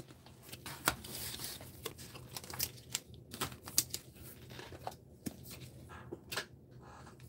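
Glossy trading cards being handled and slid against each other by gloved hands: a string of light clicks, scrapes and rustles.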